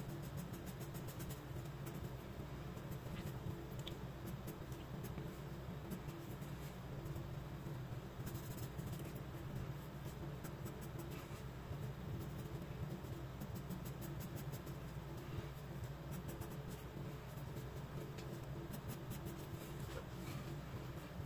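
A 4B graphite pencil scratching on sketchbook paper in many quick, short shading strokes, over a steady low hum.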